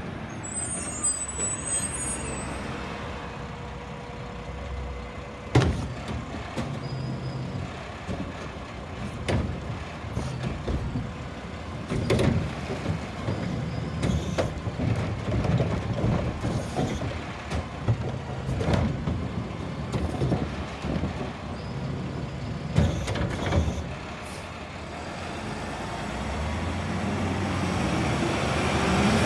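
Mack LR garbage truck with a Heil Curotto-Can arm working a curbside cart: the engine runs under hydraulic work while the arm grabs, lifts and empties the cart. There is one sharp bang about five seconds in, then a run of clunks and rattles as the cart is shaken out and set back, with an air-brake hiss. The truck's engine grows louder near the end as it pulls forward.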